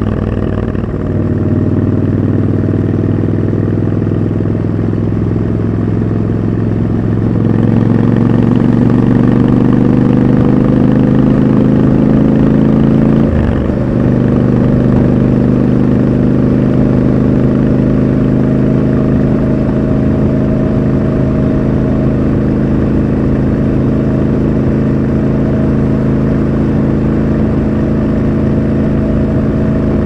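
Triumph Scrambler 1200 XC's 1200 cc parallel-twin engine under way, its note climbing slowly as the bike accelerates. About halfway through there is a brief break and dip, typical of a gear change, and then it runs steady at cruising speed.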